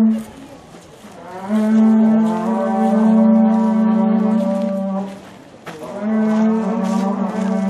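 A horagai (conch-shell trumpet) blown in long, low held blasts: a short one at the very start, one of about three and a half seconds, and another that starts about six seconds in and carries on.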